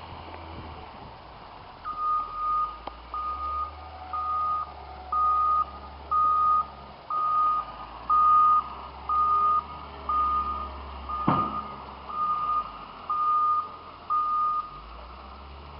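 Reversing alarm of a snow-plowing loader beeping about once a second, thirteen beeps, over the low rumble of its engine, as the machine backs up. A single sharp knock about eleven seconds in.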